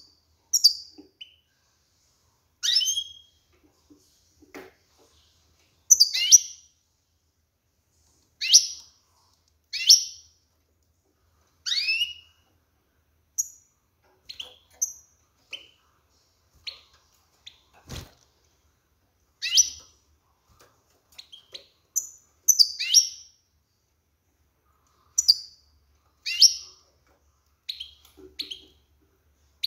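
Female European goldfinch calling: short, high, chirping calls that drop in pitch, given singly or in quick pairs every second or two. They are the calls of a hen in breeding condition, which stir males to sing. A single click sounds about two-thirds of the way through.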